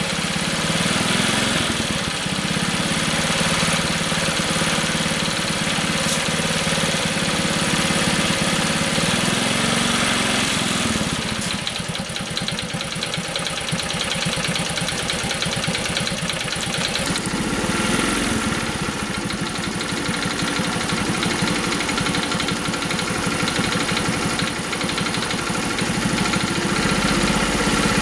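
Honda Super Cub 50's small air-cooled single-cylinder four-stroke engine running at idle, its note changing a couple of times.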